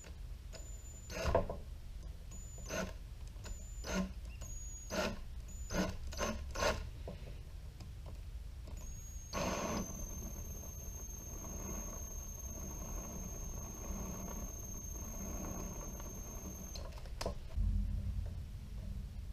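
Cordless drill driving a sling stud, chucked in the drill, into a hollow synthetic rifle stock. The motor whines in about six short trigger pulses, then in one steady run of about eight seconds that cuts off, followed by a click and a low knock near the end.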